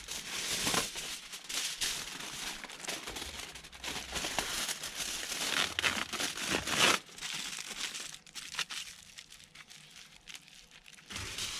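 Crinkly wrapping being handled and pulled open, with irregular crackling and tearing strokes that are loudest about two-thirds of the way through, then dying down to faint rustles.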